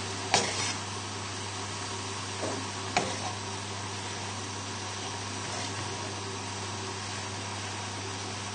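A spoon knocks the pan twice while stirring creamy cabbage on the hob, about half a second in and again about three seconds in. A steady low hum runs underneath.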